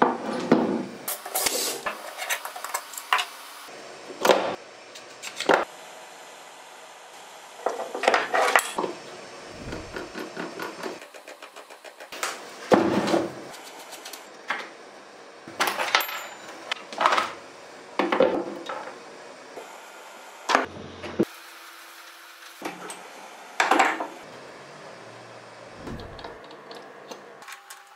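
Metal parts and hand tools handled and set down on a wooden workbench: a string of irregular clinks and knocks, some ringing briefly.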